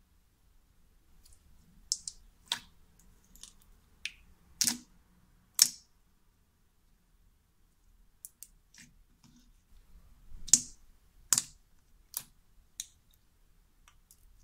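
Clear slime topped with large foam beads being pressed and squished by hand, giving irregular sharp clicking pops and crunches. The pops come in two bunches with a short pause between.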